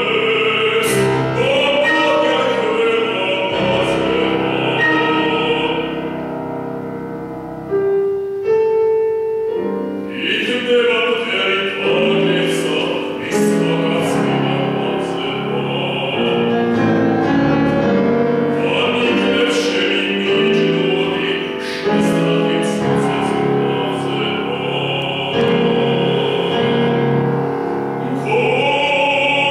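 Male classical singer singing a Georgian art song in full operatic voice, accompanied on grand piano. The voice drops out for about two seconds roughly a quarter of the way in, leaving the piano alone, then comes back in.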